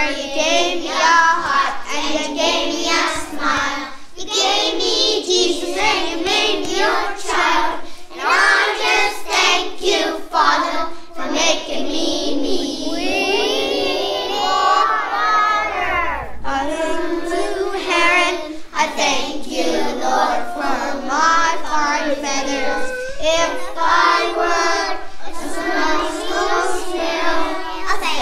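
A group of young children singing a song together, with one long swooping note about halfway through.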